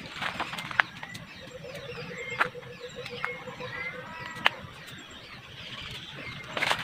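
Forest birds chirping and calling in short curved notes, with a low, even trill running for a few seconds in the middle. Three sharp snaps cut through, about one, two and a half, and four and a half seconds in.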